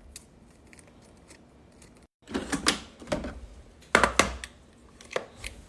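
Scattered clicks and knocks from kitchen items being handled, the loudest about four seconds in, after a quiet first two seconds.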